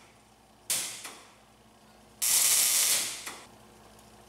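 MIG welding arc crackling in two short tack welds on steel. The first is brief, about a second in, and fades quickly. The second starts just after two seconds and holds steady for about a second before stopping.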